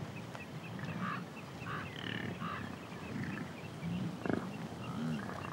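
Bison grunting low and repeatedly in a herd, with faint high chirps above.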